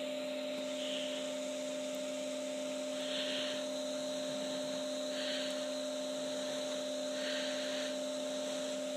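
A steady electrical hum with a faint hiss, and soft rubbing sounds about four times as the small synchronous motor is turned over in the fingers.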